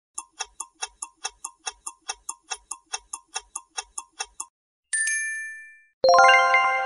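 Countdown-timer sound effect: a quick, even clock tick-tock, about five ticks a second, for about four seconds. Then a single bright chime rings and fades. About a second later a louder, sustained chime chord sounds.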